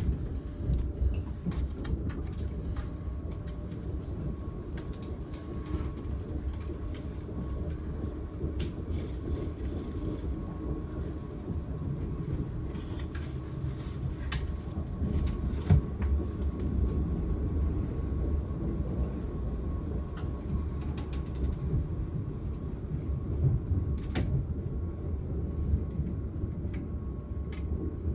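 Passenger train running steadily out of the station, a low rumble with a faint steady whine above it and occasional sharp clicks from the wheels on the rails.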